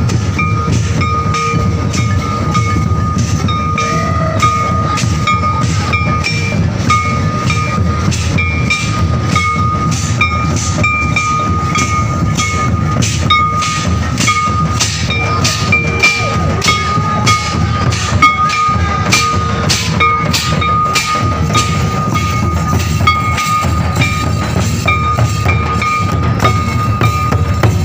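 Traditional folk drums, among them a large bowl-shaped kettle drum, beating a steady driving rhythm for a line dance, with a high held tone that keeps breaking off and starting again over the drumming.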